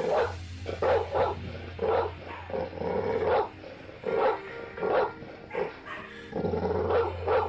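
A dog barking again and again in short, unevenly spaced barks, over background music with a steady bass.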